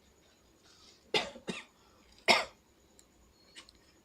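A man coughing three times, short and sharp, the last cough the loudest, about two seconds in.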